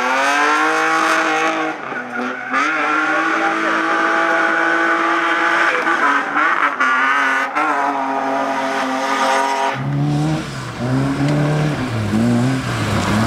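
BMW 3 Series (E36) rally car's engine revved hard and held high while it drifts, with its tyres squealing. About ten seconds in, this cuts to a Lada saloon's engine revving up and down repeatedly as it slides on dirt.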